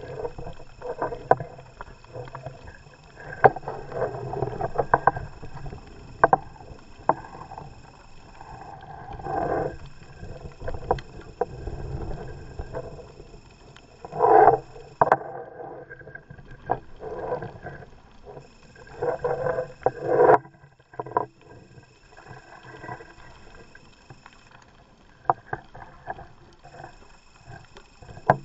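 Underwater sound through a camera's waterproof housing: swells of muffled whooshing every few seconds from a diver breathing on a closed-circuit rebreather, over a low rumble, with scattered sharp clicks.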